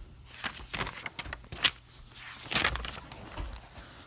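Faint rustling with a few soft, irregular clicks and knocks: handling noise.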